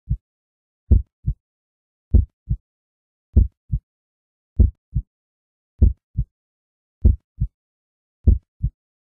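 Heartbeat sound effect: slow paired thumps, a stronger beat followed by a softer one, repeating about every 1.2 seconds with silence between.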